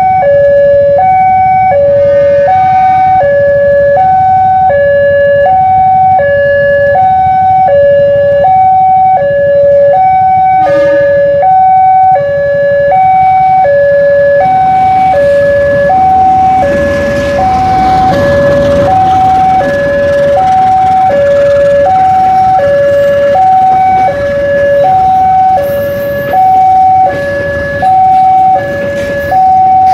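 Indonesian railway level-crossing alarm sounding its electronic two-tone hi-lo warning, switching pitch about twice a second, as a passenger train passes the lowered barrier. The train's rumble swells about halfway through.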